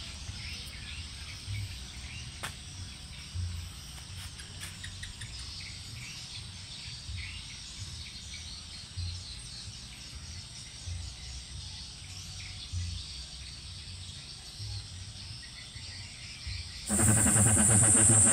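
Outdoor background of insects chirping over a low rumble, with a few light clicks. Near the end, loud electronic music suddenly starts through a home PA speaker system with a 15-inch subwoofer.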